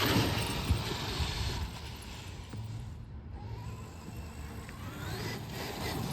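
Traxxas XRT electric RC monster truck driving, its brushless motor whining up in pitch as it accelerates, twice, over the rush of its tyres.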